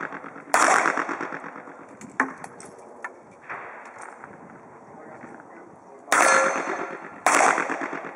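Handgun shots with long echoes: one loud shot about half a second in, fainter shots in the middle, and two more loud shots about a second apart near the end.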